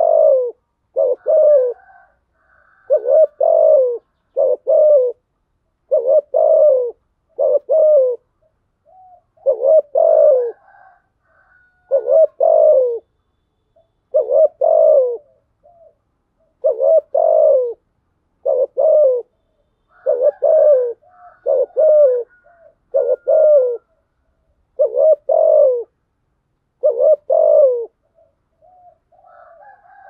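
Spotted dove cooing, a decoy bird's call meant to provoke wild doves into calling. Short low coos come mostly in quick pairs, repeated every second or two.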